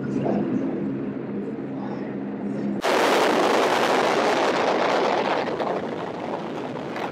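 A steady low drone of several held tones, then a sudden cut about three seconds in to loud wind rushing and buffeting past skydivers in freefall, heard on a helmet-mounted camera.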